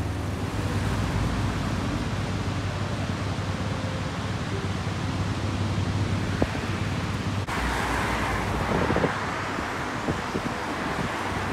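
Outdoor ambience of wind rushing over the microphone, with a low steady hum of road traffic. About two-thirds of the way through it cuts abruptly to a brighter rushing hiss with a few light knocks.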